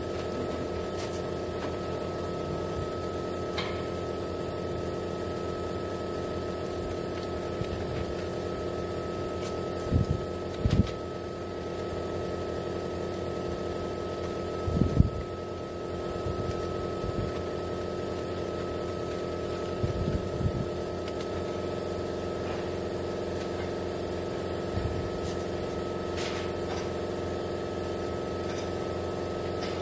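A steady mechanical hum from machinery running, with a constant whine over it. A few low thumps come through briefly about ten, fifteen and twenty seconds in.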